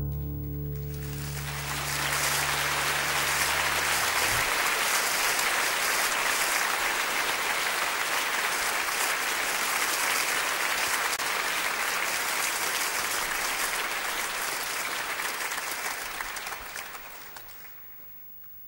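Audience applauding after a song, while the final chord of an acoustic guitar rings out low underneath for the first few seconds. The applause swells about a second in, holds steady, then dies away near the end.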